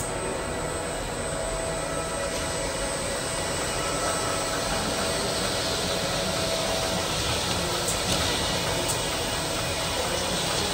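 Haton bread line running: the electric gear motors, conveyor belts and Combi UL moulder rollers make a steady mechanical whir.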